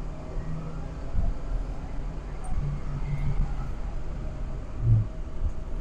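Engine and road noise inside a moving vehicle's cab as it drives off along the road, a steady low rumble with a brief low thump about five seconds in.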